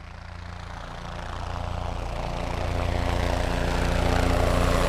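Engine running steadily at an even idle, fading in and growing steadily louder.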